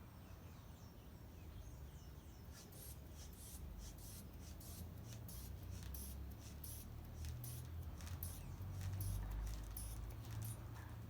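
A manual sphygmomanometer being worked by hand: a run of short, sharp clicks and air puffs, roughly two a second, from the rubber bulb and valve, over a low handling rumble.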